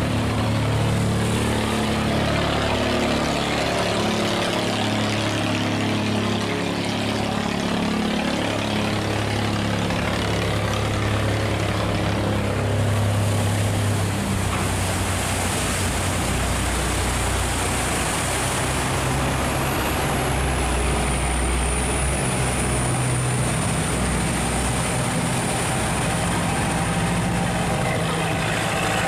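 Boat engines running as a steel barge and then a wooden boat motor through the sluice gate, over rushing, churning water. The engine note changes about halfway through as the second boat passes, and a thin high whine runs through the last third.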